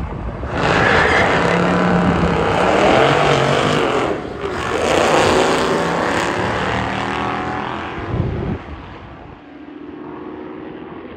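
High-performance cars racing at full throttle, with loud engine and exhaust noise for about eight seconds and a short dip just after four seconds in. Then the engine sound falls away to a quieter, distant level.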